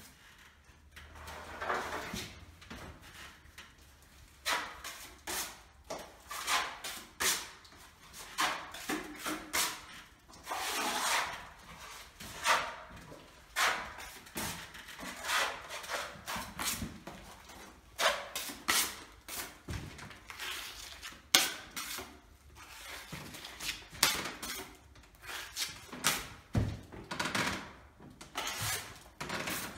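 Metal scraper or putty knife dragged across a plaster wall in repeated scraping strokes, about one a second, to work over flaking paint.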